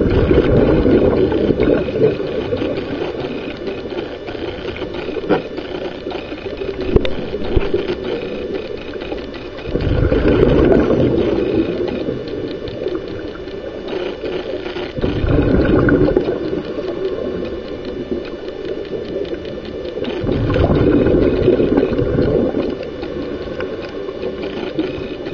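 Scuba regulator exhaust heard underwater: four long bursts of exhaled bubbles a few seconds apart, the rhythm of a diver's breathing, over a steady hiss.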